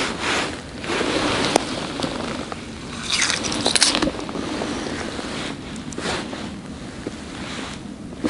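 Rustling handling noise with wind on the microphone, and a short burst of crackling and crunching about three seconds in as a hand works in the slushy snow at an ice-fishing hole.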